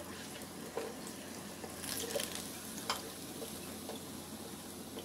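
Hot oil sizzling steadily as a battered jackfruit 'chicken' patty deep-fries in a pot, with a few light knocks and scrapes of a plastic slotted skimmer against the pot as the patty is lifted out.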